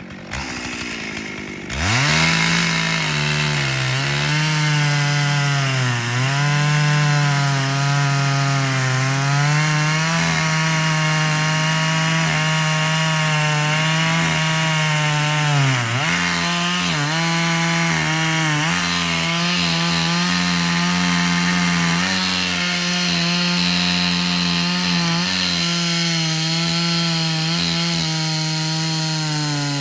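Chainsaw cutting through a dead ash log, revving up about two seconds in and then held at high speed under load, with the engine pitch sagging briefly a couple of times as the chain bites.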